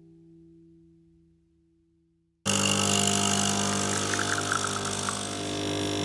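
Krups capsule coffee machine running, its pump giving a steady loud buzz as coffee pours into a cup, starting abruptly about two and a half seconds in. Before that, the tail of acoustic guitar music fades away.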